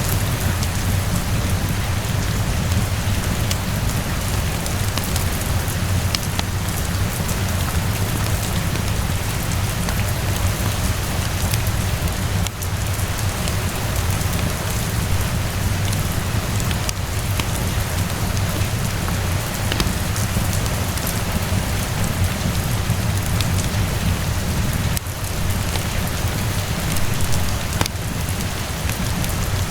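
Steady rain falling with a low rumble beneath it, and scattered sharp crackles from a wood fire.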